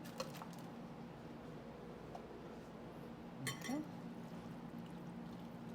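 Quiet kitchen room tone with a steady low hum. A few faint light clicks come just after the start, and a brief short voice-like sound about three and a half seconds in.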